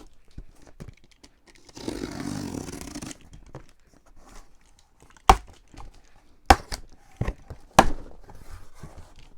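A cardboard box being torn open, a ripping sound for about a second, followed by four sharp knocks as the box is handled.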